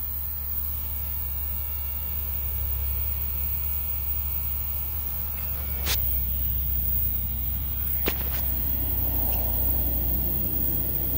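A steady low electrical-sounding hum, with two sharp clicks about six and eight seconds in.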